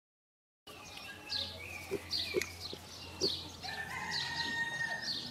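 Birds chirping over and over, with short low grunts from two black piglets rooting in the grass; the sound begins after about half a second of silence.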